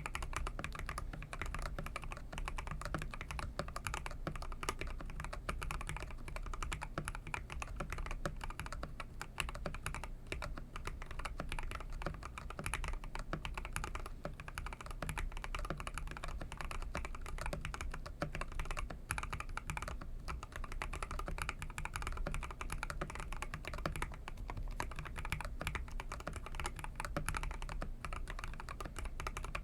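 Mechanical keyboard with lubed Akko CS Jelly Black linear switches being typed on quickly and continuously: a dense stream of key clacks.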